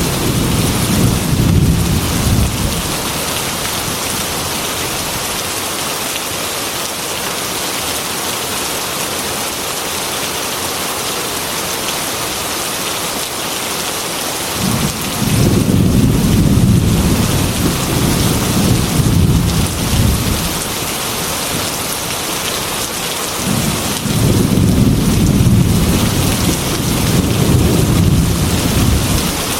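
Heavy rain falling steadily, with low thunder rumbles three times: briefly at the start, for several seconds from about halfway, and again near the end.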